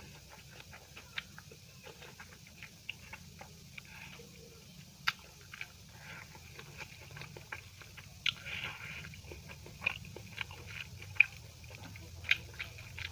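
A person chewing food close to the microphone, with wet mouth clicks and lip smacks coming irregularly and a few sharper clicks standing out.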